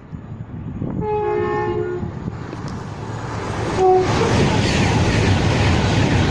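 A train sounds its two-tone horn, high note then low, about a second in, gives a short second blast just before four seconds, then runs through the station with loud, steady wheel and rail noise.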